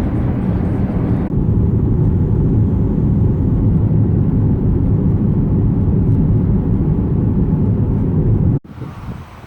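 Steady low rumble of road and engine noise inside a moving car, cutting off abruptly near the end to a much quieter background.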